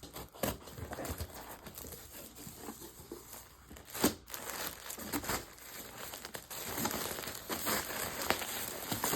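Plastic packaging crinkling and rustling as a parcel of clothes is unpacked by hand, in irregular crackles with a sharp, loud crackle about four seconds in.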